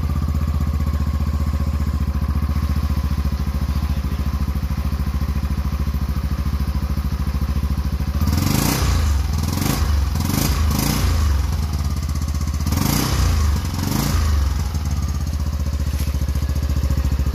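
Yamaha NMAX v2 scooter's single-cylinder engine idling through a JVT aftermarket exhaust set to its adjusted, fairly quiet setting. Several short throttle blips come about halfway through before it settles back to idle.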